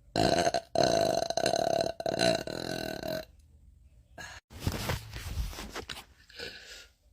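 A woman burping loudly in long, drawn-out belches, broken by two short pauses in the first three seconds. Quieter, rougher burp sounds follow about a second later.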